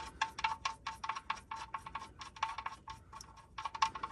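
Socket ratchet clicking in quick, uneven runs of sharp metallic ticks as the oil drain plug is run in snug.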